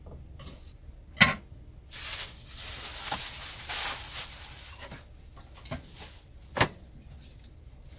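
A thin plastic shopping bag rustling and crinkling as it is handled and opened, after one sharp knock about a second in; two more short knocks near the end.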